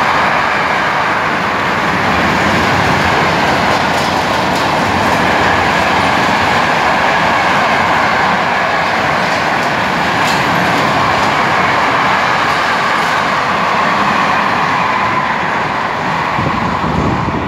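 Freight train's wagons rolling past at speed: a loud, steady rush of steel wheels on rail with occasional clicks, easing off a little near the end as the train moves away.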